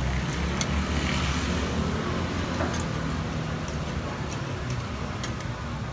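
Metal tongs ticking against a takoyaki griddle as the octopus balls are turned, in scattered sharp clicks about once a second, over a steady low background hum.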